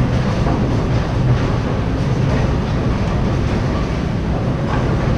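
Steady low rumble of bowling balls rolling down the lanes, without a clear pin strike.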